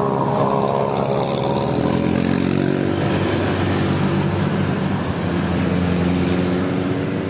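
A bus's engine running as it drives past, its pitch sliding down over the first couple of seconds and then holding steady.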